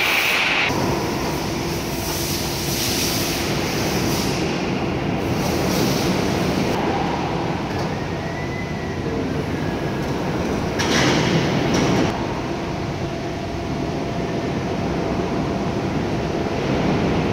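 Valve test bench running during valve clamping: a steady mechanical rumble and hiss, with a louder rush about eleven seconds in.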